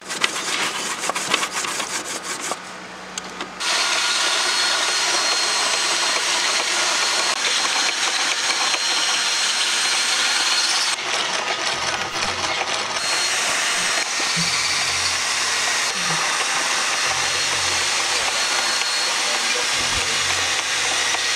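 Fresh coconut rasped on a metal box grater in quick strokes for a couple of seconds. From a few seconds in, a hand-cranked metal mill grinds the coconut meat with a steady, even grinding noise.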